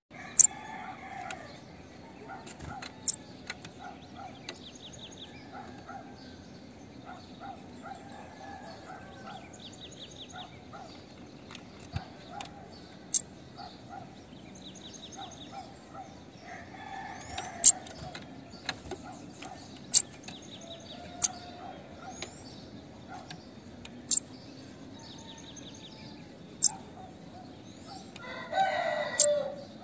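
Female bananaquit calling: single sharp, very high chips every few seconds. Behind them, faint trills of other birds run on, and near the end a fowl crows briefly.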